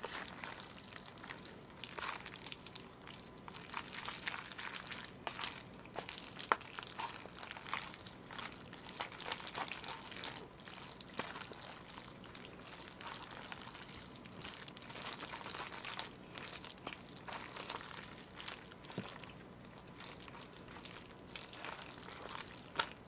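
Chopsticks mixing jajangmyeon noodles through a runny black bean sauce in a bowl: wet squelching and dripping with scattered small clicks.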